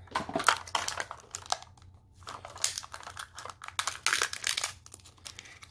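Thin plastic wrapping crinkling and crackling as a Mini Brands miniature is unwrapped by hand, in two stretches with a short pause about two seconds in.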